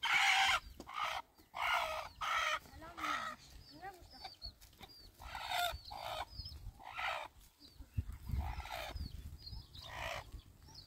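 Domestic hen squawking and clucking in a string of about ten harsh calls, the loudest right at the start.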